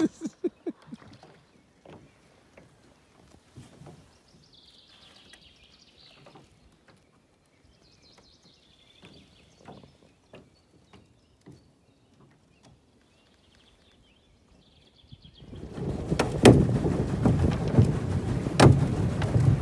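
Faint scattered knocks and clicks, then about three-quarters of the way in, loud wind buffeting on the microphone starts: a dense low rumble with sharp pops.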